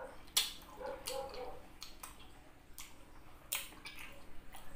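Wet mouth clicks and lip smacks from chewing juicy rambutan flesh: a handful of sharp, irregularly spaced clicks.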